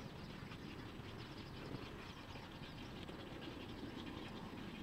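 A nesting colony of white wading birds, taken for egrets, calling faintly: many short squawks overlapping in a steady chatter, over a low steady rumble.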